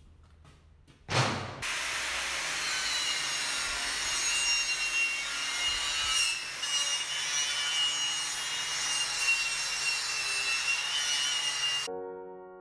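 Angle grinder grinding a mild-steel edge, preparing it for welding: a steady, rasping grind with a high, slightly wavering whine. It starts abruptly about a second in and cuts off near the end, where piano music comes in.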